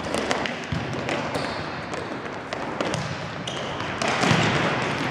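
Futsal ball being headed, kicked and bouncing on the indoor court, a string of short thuds and taps that echo around a large hall, with players' footsteps on the court.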